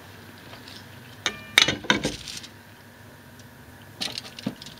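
Metal cooking pot set down onto a folding metal pocket stove: a few sharp clinks and clanks about a second and a half in, one with a brief metallic ring, then a few lighter clinks near the end.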